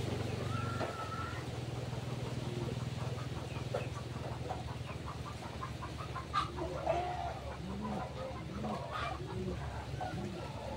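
A bird giving a run of five short, low calls, each rising and falling, a bit under a second apart near the end, over a steady low hum.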